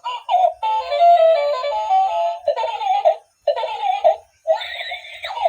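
An electronic toy playing a short song with a sung voice through its small speaker. It sounds tinny, with no bass, and breaks off in short pauses between phrases.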